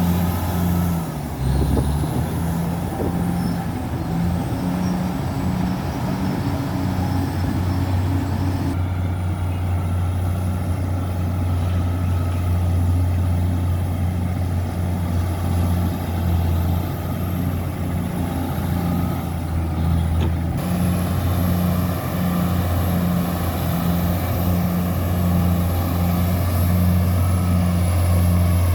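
Bulldozer's diesel engine running steadily with a low drone, while a low tone pulses on and off throughout, about once a second.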